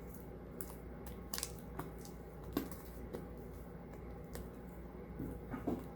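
Fluffy shaving-foam slime being kneaded by hand: irregular soft sticky squishes and clicks, a few of them sharper, at a low level over a faint steady hum.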